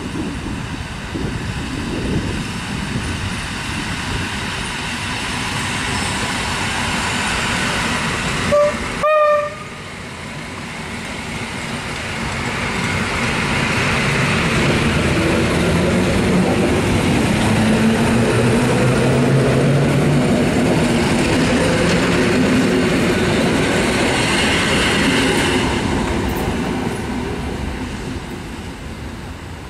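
SKM EN71 electric multiple unit approaching on the track: its horn sounds two short blasts about 9 s in, the second a little longer. It then passes close by, the rumble of wheels on rail and motor hum swelling to its loudest about two-thirds of the way through and fading as it moves off.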